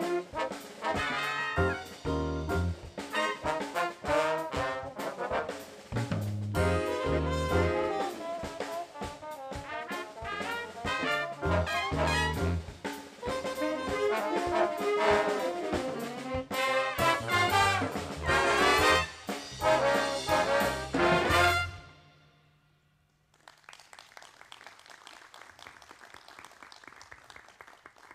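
Jazz orchestra playing, led by trumpets and trombones over drum kit and bass, stopping about 22 seconds in. A few seconds of quieter, even noise follow.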